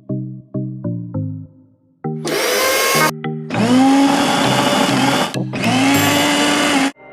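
An electric mixer grinder's motor, the Pigeon Glory 550 W, runs in three bursts, its whine rising as it spins up each time and then holding steady. Music plays underneath, with a few plucked notes before the first burst.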